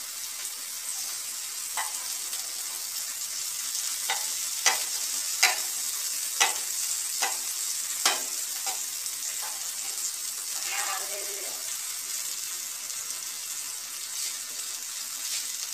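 Okra and tomatoes sizzling in oil on a flat griddle, a steady hiss. Through the middle, a spatula taps sharply against the griddle about nine times, pressing and breaking up the tomato pieces.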